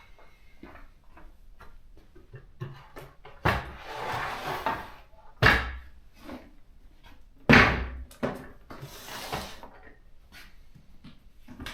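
Heavy objects being moved about on a table: three loud thumps about two seconds apart, with sliding and scraping between them and small knocks and clicks.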